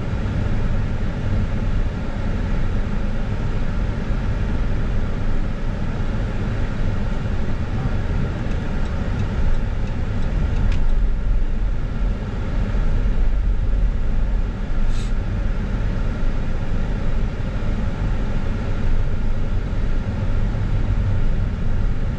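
Steady engine and tyre rumble of a car driving, heard from inside its cabin.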